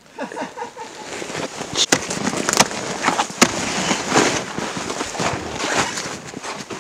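Irregular crackles and sharp knocks over rough rustling noise, busiest in the middle, as a rider wrestles a snowmobile in deep snow beside a tree.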